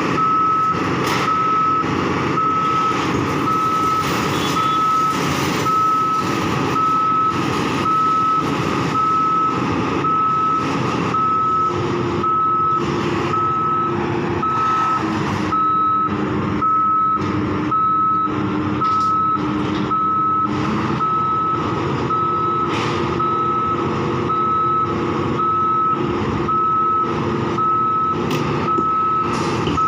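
Back-up alarm beeping at a steady, even pace over the running of heavy diesel construction machinery. A steady lower whine joins in from a little before the middle and drops out about two-thirds of the way through, among frequent clanks.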